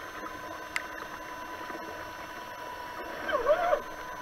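Steady rush of a flooded stream with a steady high tone underneath, and a person's voice calling out briefly about three seconds in.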